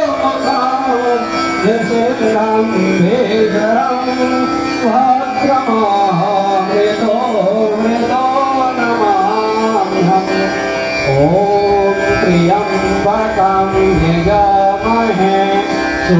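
A man singing a Sanskrit Hindu mantra in a slow, melodic, gliding style through a microphone and loudspeaker, over Indian devotional music with a steady drone underneath.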